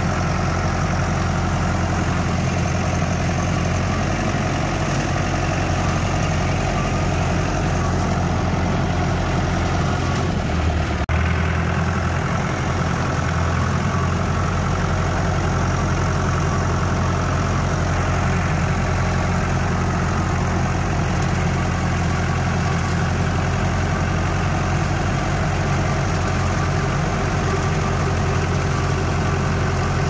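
Farm tractor engine running steadily while the tractor mows through tall grass, heard from the driver's seat; its low note shifts briefly about eleven seconds in.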